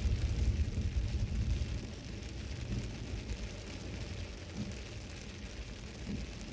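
Inside a Toyota Celsior (UCF31) driving on a rain-soaked road: a low road rumble with the hiss of tyres on the wet surface. The rumble eases after about two seconds.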